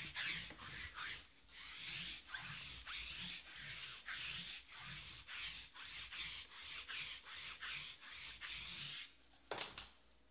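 A hand roller rolled back and forth over a row of foil-wrapped trading card packs, the foil rustling and crinkling in even strokes about twice a second. The strokes stop about nine seconds in, followed by two short knocks.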